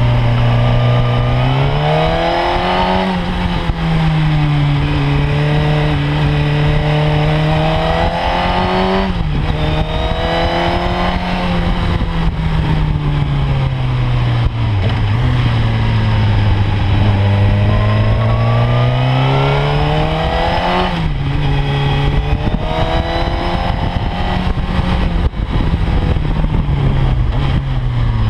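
Sport motorcycle engine heard from on board, its pitch climbing under acceleration and dropping sharply at gear changes about 3 and 9 seconds in. It then sinks into a long low stretch as the bike slows for a bend, and climbs again before another drop about 21 seconds in.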